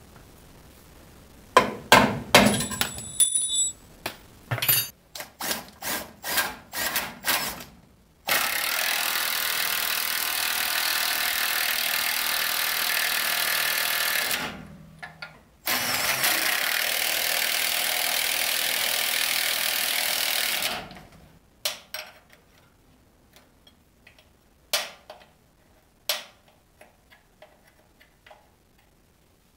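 Metal clunks and knocks as a new trailer air spring is shoved into its mounts, some with a short metallic ring. Then come two long stretches of loud, steady rushing noise, about six and five seconds long, and a few light clicks near the end as a wrench works the nut on the air spring's top stud.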